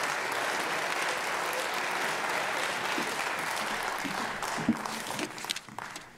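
Audience applauding steadily, dying away near the end, with a single thump about four and a half seconds in.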